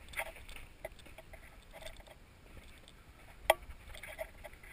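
Footsteps crunching and scuffing on the loose rock and talc rubble of a mine tunnel floor, a few steps a second. There is one sharp click about three and a half seconds in.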